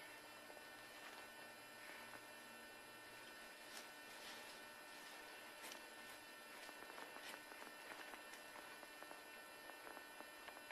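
Near silence: a faint steady hum and hiss, with a few faint ticks.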